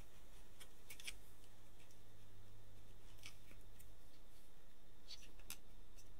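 Faint scattered small clicks and scrapes of a test lead's banana plug and fingertips working against a bare multimeter circuit board, as the plug is wiggled in its input socket to find a dodgy connection.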